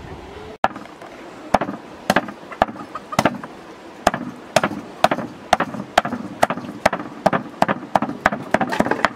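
Cleaver chopping grilled meat on a wooden chopping block: sharp chops about two a second, coming faster near the end.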